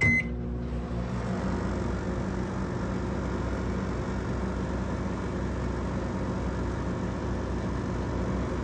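Microwave oven giving one short high beep as it is started, then running with a steady hum.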